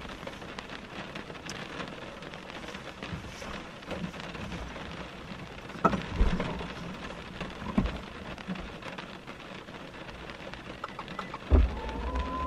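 Steady rain pattering on the roof and windows of a car, heard from inside the cabin. A few dull thumps break in around the middle, and a louder one comes near the end.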